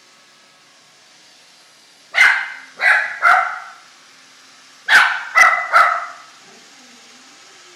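A dog barking in two quick bursts of three barks each, alarm barks at a robot vacuum she is wary of.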